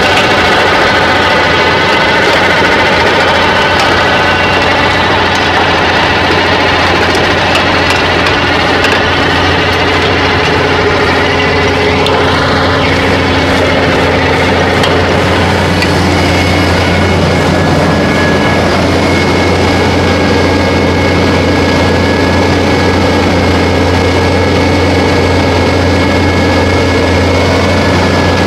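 Fendt 718 Vario tractor's diesel engine running steadily under load while it works a Maschio seedbed implement, with a steady hum and several held whining tones over it.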